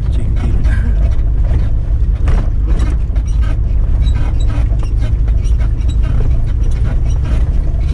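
Mitsubishi Pajero V6 driving along a rough forest dirt track: a steady low rumble of engine and tyres, with frequent knocks and rattles as the vehicle rides over bumps.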